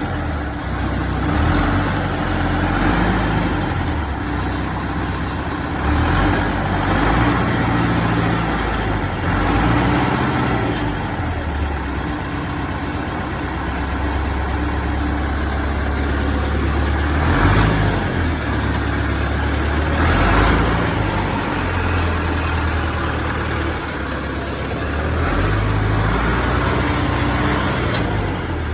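T-40 tractor's diesel engine running under load while pulling a rotary tiller and row cutter, with a broad mechanical clatter and the engine note shifting up and down every few seconds.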